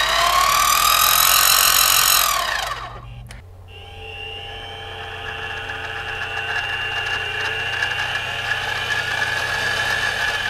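Central Machinery mini mill spindle running on its factory gear transmission: a loud gear whine that climbs in pitch as the speed is turned up, then winds down about three seconds in. After that the same mill, fitted with a belt-pulley conversion, runs at a steady speed, noticeably quieter, with a light even whine.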